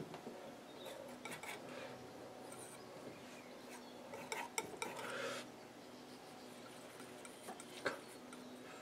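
Metal painting knife being handled and worked: a few light clinks, a short scrape about five seconds in, and a sharper tick near the end, over a faint steady hum.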